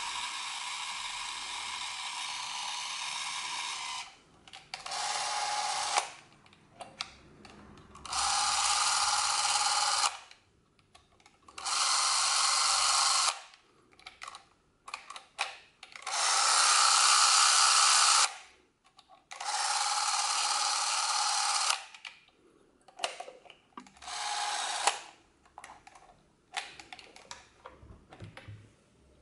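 Canon 518 SV Super 8 camera's electric motor and film-drive mechanism whirring. It runs steadily for about four seconds, stops, and is then started again in six short runs of one to two and a half seconds, with small clicks between; the run about two-thirds of the way through is the loudest.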